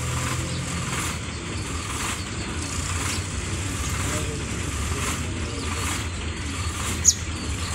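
Low steady rumble of a passenger train still approaching from a distance, with one sharp click about seven seconds in.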